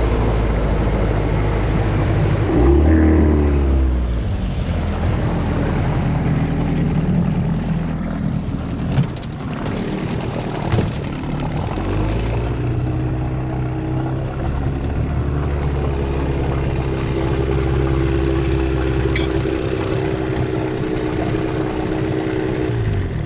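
30-horsepower Evinrude outboard motor running a light john boat under way. The revs climb about three seconds in, then hold steady with a few knocks around the middle, and drop near the end.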